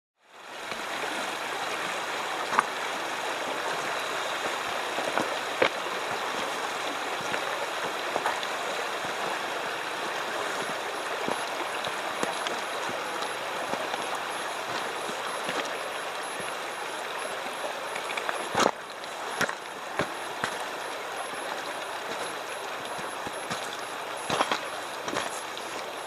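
Shallow, rocky creek flowing over stones with a steady rush of water, fading in at the start. A few sharp clicks stand out above the flow.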